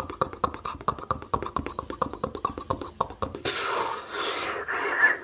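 Fast ASMR mouth sounds: a rapid run of sharp mouth clicks for about three seconds, then a loud breathy hiss for about a second.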